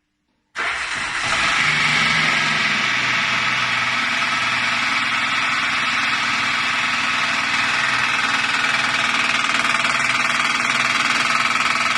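Honda Pilot's V6 engine running with a knock after an oil hydrolock from the car being upside down. The sound comes in suddenly about half a second in and then runs steadily.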